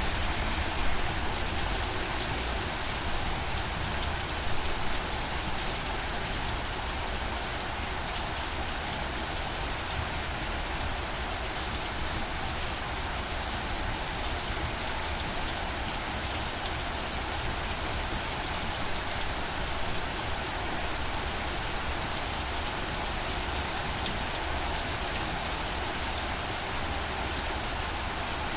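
Steady rain falling on a surface, a dense even patter of drops with a few slightly louder drops in the first few seconds.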